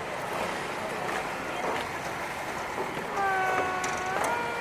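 Train horn sounding over station platform noise: one steady note for about a second, then a second note at a different pitch near the end.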